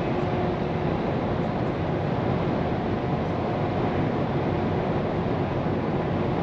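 Steady running noise of a Scania P410 truck heard inside the cab: engine drone mixed with tyre and road rumble, unchanging, with a faint steady hum.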